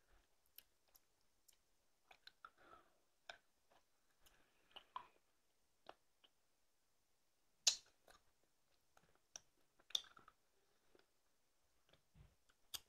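Faint mouth sounds of someone sucking a hard candy: scattered small clicks and smacks of the candy against teeth and lips, with two sharper clicks about eight and ten seconds in.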